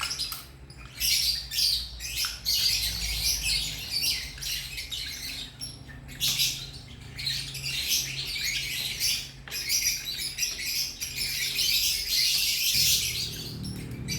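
Birds chirping continuously and irregularly, over a faint low hum that grows louder near the end.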